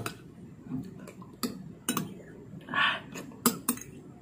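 Metal spoon clinking and scraping against a ceramic bowl, several sharp separate clinks, as it chases slippery raw egg around the bowl, with a short slurp from the bowl's rim a little under three seconds in.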